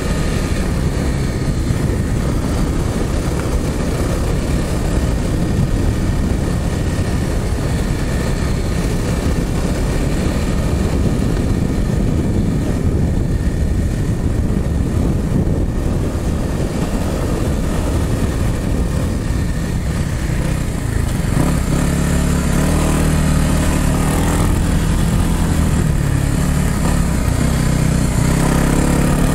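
Dirt bike engine running on a trail ride, its note rising and falling with the throttle. From about 21 seconds in it settles into a steadier, clearer pitch and gets a little louder.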